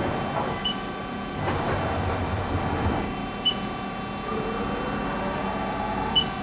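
Haas ST-30 CNC lathe's turret slide being jogged along its axes: the axis drives whine as the turret travels, over the machine's steady running hum. A soft knock comes about a second and a half in, and short high beeps sound about every three seconds.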